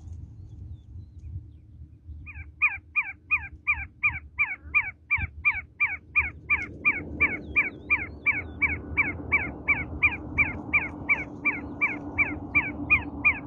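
Yellow-vented bulbul (trucukan) singing a fast, steady run of the same short, downward-slurred note, about three a second, starting about two seconds in.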